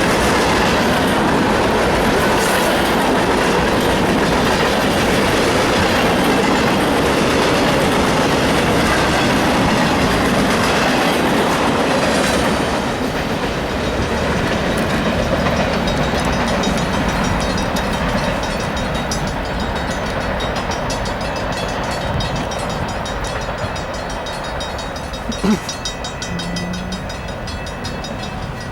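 Union Pacific freight train rolling past, the cars' wheels clattering over the rail joints; the noise eases after about 13 seconds as the train draws away. A single sharp knock near the end.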